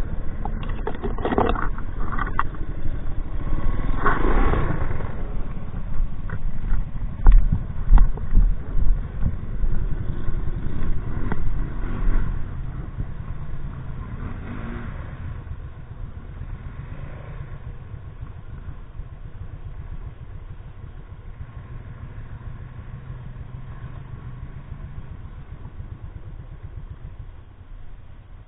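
Honda 200S three-wheeler's engine revving unevenly with several sharp knocks and clatter as it crawls over a log. After about twelve seconds the sound drops to a steady, low engine idle.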